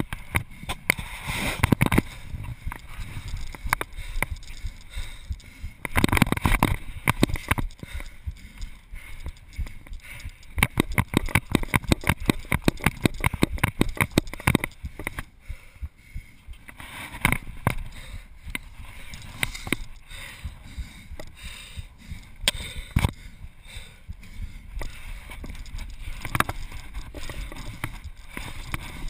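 Footsteps, scuffs and knocks of a free-runner climbing and running over rooftops, picked up by a body-worn GoPro. There is a quick, even run of steps from about ten to fifteen seconds in.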